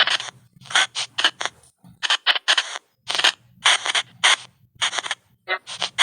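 Spirit box app chopping white noise into a rapid run of short hissing bursts, several a second with brief gaps between them, over an on-and-off low hum.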